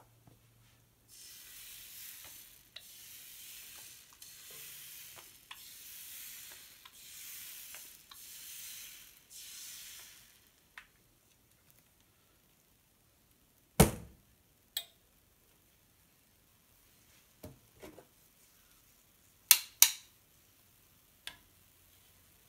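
Pancake batter sizzling on a hot griddle in about seven short hissing swells, one for each stripe piped from a squeeze bottle. After that come a few sharp knocks and clacks as the bottle is set down on the table and the spatula and tongs are handled: a loud knock about halfway through and two close together near the end.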